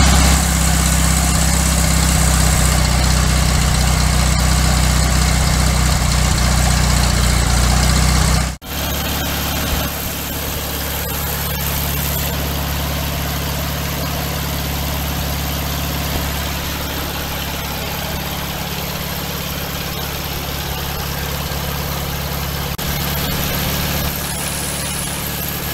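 Air-cooled flat-four engine of a VW Beetle 1303 idling steadily. It briefly drops out about eight and a half seconds in and then carries on a little quieter.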